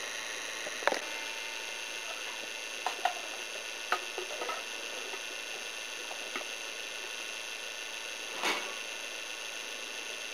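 Steady hiss with a faint high whine from the camcorder's own recording noise, broken by a few scattered sharp clicks and small knocks, the loudest about a second in, and a short, wider knock about eight seconds in.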